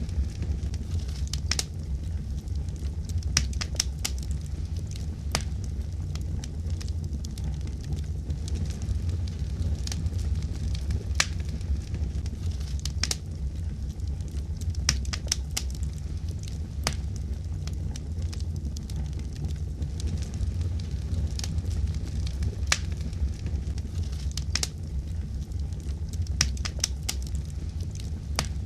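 Wood fire crackling: irregular sharp pops and snaps over a steady deep rumble of burning.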